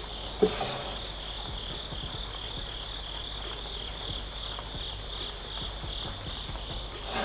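Steady high-pitched chirring of an insect chorus, with one short light knock about half a second in.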